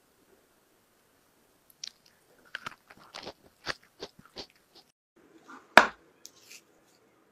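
Biting and chewing a baked coconut tart: a run of short, crisp crunches. About six seconds in comes a single louder knock as a wooden basket is set down on a wooden tabletop.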